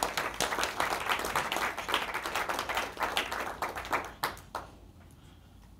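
Audience applauding with dense clapping that thins out and stops about four and a half seconds in.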